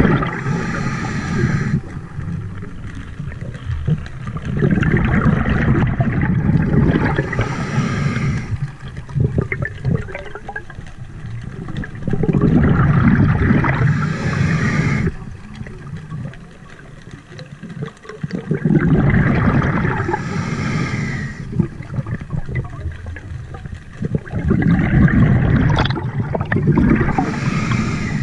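A scuba diver breathing underwater through a regulator: repeated breaths, each a brief hiss followed by or overlapping a rumbling gush of exhaled bubbles, coming about every six to seven seconds, five times.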